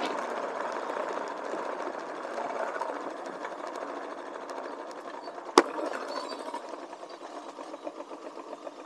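Motorcycle engine running with a fast mechanical rattle that slowly fades. A single sharp click comes about five and a half seconds in. Near the end the running settles into an even pulsing of about five beats a second.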